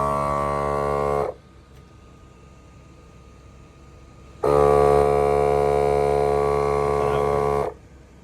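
Milwaukee battery-powered portable compressor running with a steady motor hum. It shuts off about a second in, starts again about three seconds later, runs for about three seconds and shuts off again, cycling on and off at its set pressure.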